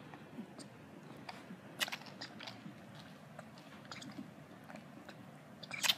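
Lion cub suckling milk from a feeding bottle, with irregular wet sucking clicks and mouth smacks. One louder smack comes about two seconds in.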